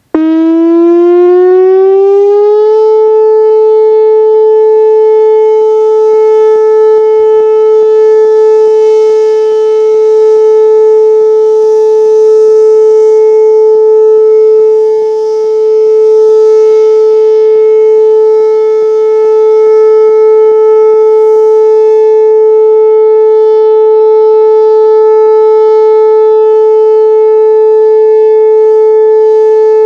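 Whelen Vortex R4 outdoor warning siren starting up: its pitch rises for about three seconds, then holds one loud, steady tone. This is the steady Alert signal, sounded for a routine test.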